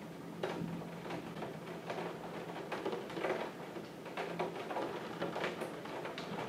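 Raindrops tapping irregularly on a window pane, several small ticks a second, over a faint steady low hum.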